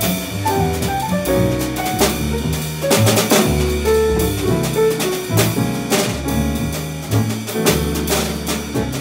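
Small jazz combo playing live: drum kit played with sticks, with frequent drum and cymbal hits, over walking upright double bass.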